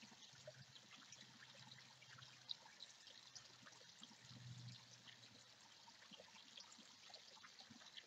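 Faint trickle of water running down a small rock-lined stream into a backyard pond, with many little splashes and drips. A faint low hum comes and goes under it.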